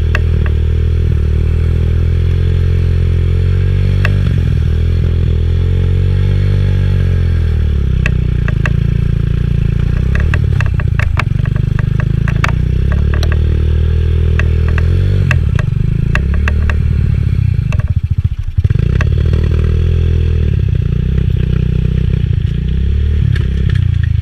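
Pit-bike engine of an X7 super pocket bike running and revving up and down as it rides, with scattered clicks and scraping over it. The engine note dips briefly about three-quarters of the way through.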